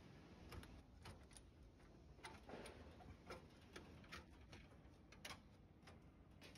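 Faint, irregular light clicks and taps of metal parts being handled: an aluminium frame and the metal camping box's panels being moved and set in place.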